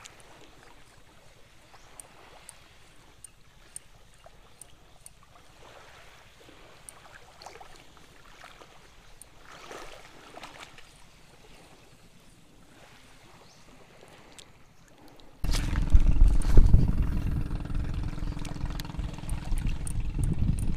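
Faint trickle of shallow water with scattered small clicks. About fifteen seconds in, a sudden loud, low rushing noise takes over.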